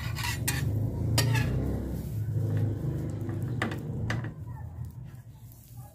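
Metal spatula scraping and tapping on a flat steel tawa as bread buns are turned on it, with a few sharp metallic clicks in the first four seconds, over a steady low hum.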